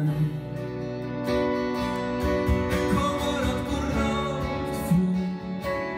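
Live acoustic pop song played by a band, led by strummed acoustic guitars.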